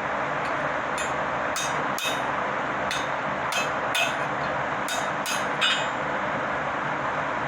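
A farrier's hammer striking metal about ten times in an irregular rhythm, each blow short and ringing, over a steady rushing noise.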